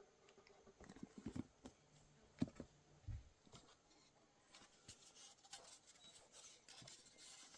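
Faint scattered clicks and light knocks, with a sharper tap about two and a half seconds in and a dull low thud just after.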